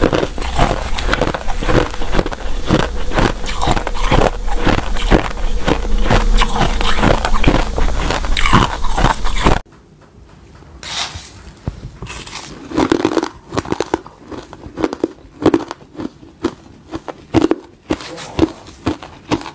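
Crushed ice being bitten and chewed close to a clip-on microphone. For the first half it is a loud, dense, rapid crunching. About halfway through it cuts to a quieter, slower run of separate crunches.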